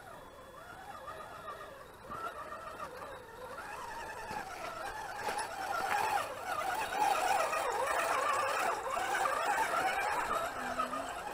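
Electric motors and gearboxes of RC scale crawler trucks whining, the pitch warbling up and down with the throttle as they crawl through mud. The whine grows louder about four seconds in as the trucks pass close by.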